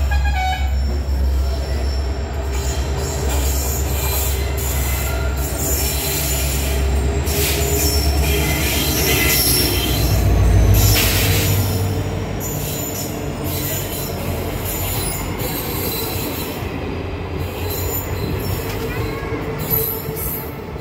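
Passenger train's ICF coaches rolling slowly through a station, heard from the open doorway: steel wheels squealing on the rails over a steady low rumble. The rumble is loudest about ten seconds in, while passing alongside a diesel locomotive on the next track, then drops away.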